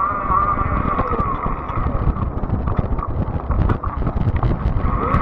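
Fat-tire electric bike riding along a trail: the motor's steady whine fades about a second in and comes back near the end. Under it, wind buffets the microphone along with a low rumble and scattered clicks and rattles from bumps in the path.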